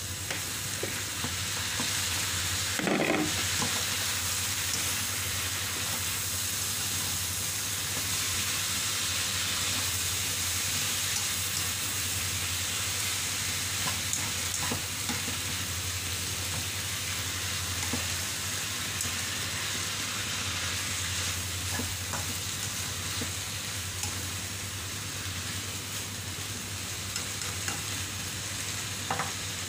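Carrots, French beans and cabbage sizzling as they are stir-fried in a wok without water, with a spatula stirring and now and then clicking against the pan. There is a brief louder burst about three seconds in.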